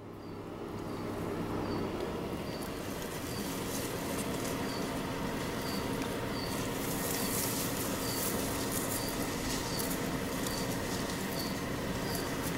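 Steady outdoor background noise with a faint, short high chirp repeating about twice a second and some light rustling.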